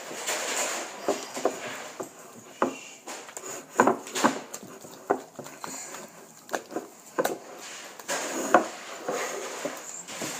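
Sticky glue slime, just activated with contact lens solution, being squished and kneaded by hand: irregular wet squelches and small clicks, a few a second.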